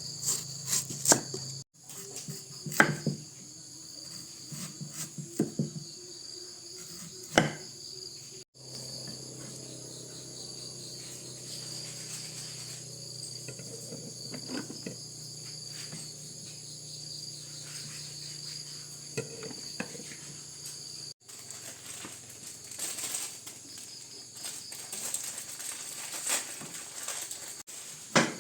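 Steady high-pitched chirring of crickets and other insects, with a few sharp knocks scattered through it.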